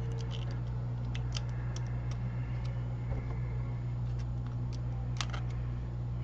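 Scattered light clicks and taps of small tools and phone parts being handled during an iPhone 6 repair, with one sharper click about five seconds in, over a steady low hum.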